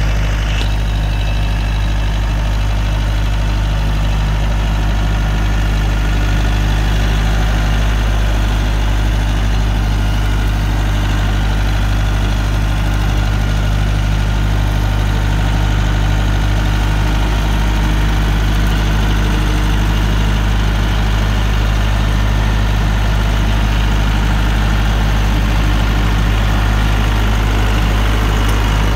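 Tractor diesel engine running steadily at an even speed, a deep, constant hum without changes.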